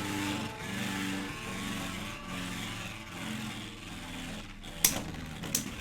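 Beyblade spinning tops whirring and scraping in a plastic stadium, with two sharp clacks near the end as a top is struck hard and nearly knocked out.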